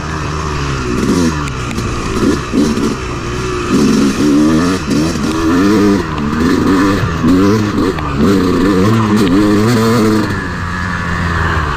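Yamaha YZ250X two-stroke single-cylinder dirt bike engine revving hard while being ridden, its pitch rising and falling again and again as the throttle is worked over rough trail.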